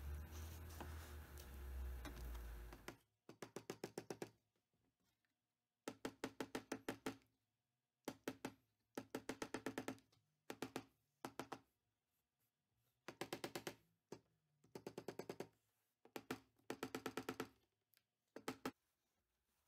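Claw hammer tapping a thin glued mahogany sliver down into a split in a tabletop, in a dozen or so short runs of quick light taps, about eight a second, with pauses between. The first few seconds hold a low rumble before the tapping starts.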